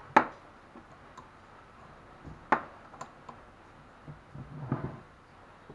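Sharp clicks and light taps of a screwdriver being handled against the threaded rod through a car alternator on a wooden workbench. There are two louder clicks, one just after the start and one about two and a half seconds in, then fainter taps and a brief shuffle of handling noise near the end.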